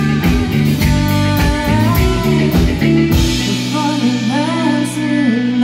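Live rock band playing: electric guitars, bass and drums with cymbals. About three seconds in the drums stop and the band's last sustained notes ring on, with sliding higher notes over them.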